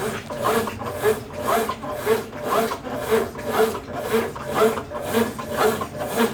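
Consul Facilite 10 kg CWC10 top-loading washing machine in its wash stage, agitating a load of bed linen and towels: an even swish-and-rub of water and fabric, about two strokes a second.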